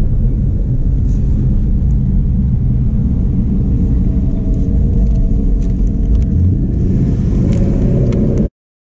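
2015 Ford Mustang GT's 5.0 V8, fitted with long-tube headers and Borla ATAK mufflers, heard from inside the cabin, giving a steady low exhaust rumble while the car rolls slowly. It cuts off suddenly near the end.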